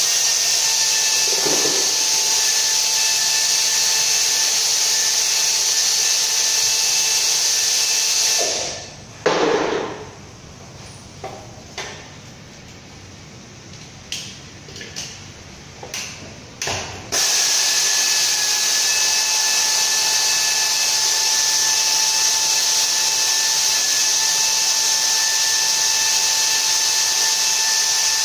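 A power tool running steadily with a hiss and a thin whine for about eight seconds, then stopping; a few light clicks and knocks follow, and after about eight more seconds the tool starts again and keeps running.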